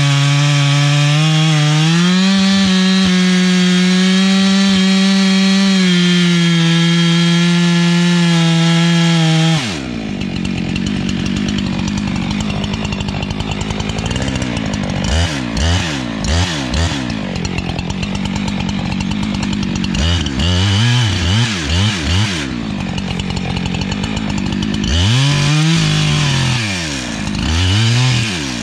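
Chainsaw running at full throttle with a steady high note, stepping up in pitch about two seconds in, as it cuts through a dead ash trunk. About ten seconds in it drops back to a lower, rougher sound, then is revved up and down in repeated swells.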